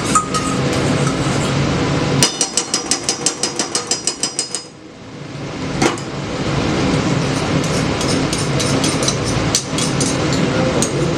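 Rapid run of ringing metal taps in the kitchen, about six a second for a couple of seconds, like a metal utensil struck against a pot or pan. The taps stop briefly, then give way to steady kitchen noise with scattered clinks.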